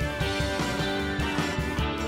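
Upbeat background music with guitar and a steady beat.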